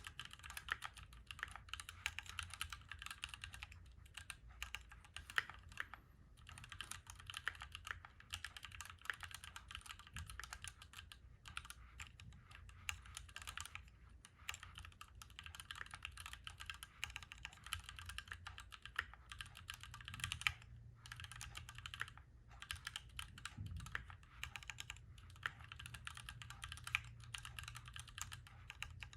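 Continuous typing on a Keychron Q1 Knob mechanical keyboard: fast runs of key clicks and keystrokes, broken by a few short pauses.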